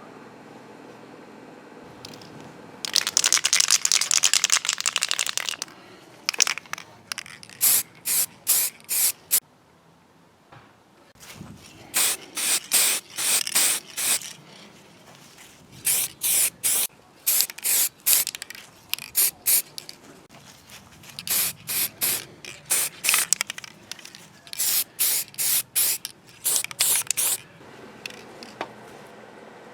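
Spray hissing in short bursts: one longer spray of about two and a half seconds, then runs of quick puffs, about three a second, with pauses between.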